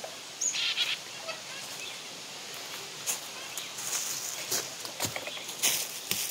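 Footsteps crunching through dry leaf litter on a forest floor, coming closer and loudest near the end as the walker passes close by.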